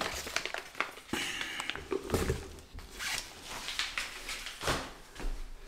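Rustling and scraping of cardboard and crinkled paper packing fill as a hand rummages in a cardboard shipping box, in short, irregular bursts.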